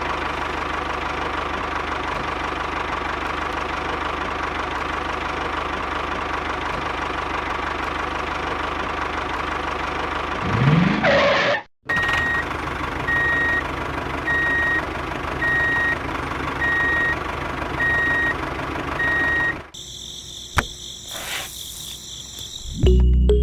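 A vehicle engine running steadily. Near the middle it cuts out for a moment, then carries on with a reversing alarm beeping at an even pace over it for about seven seconds. It ends in a few seconds of quieter, sharper sounds.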